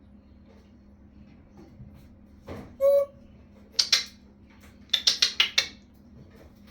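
African grey parrot making short sounds: a brief whistle-like note, then two sharp clicks, then a quick run of about six clipped high sounds.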